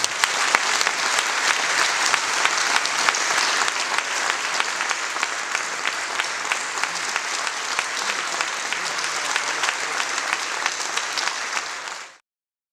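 Audience applauding, a dense steady clatter of many hands clapping, which cuts off suddenly near the end.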